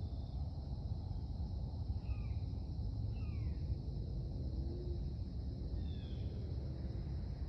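Outdoor woodland ambience: a steady high insect buzz over a low steady rumble, with three short bird calls that slide down in pitch, at about two, three and six seconds in.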